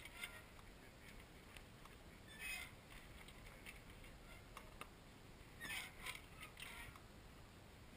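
Faint creaks and clicks from a small sailboat under sail, coming in a few short clusters, over a low rumble.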